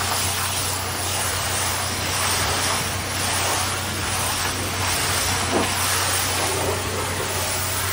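High-pressure water jet from a pressure washer wand blasting the steel tank and wheels of an asphalt tanker truck: a steady hiss of spray over a low engine hum.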